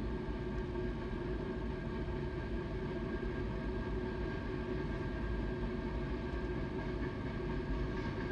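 Freight cars of a BNSF manifest train rolling past steadily: a continuous rumble with a few faint steady tones over it.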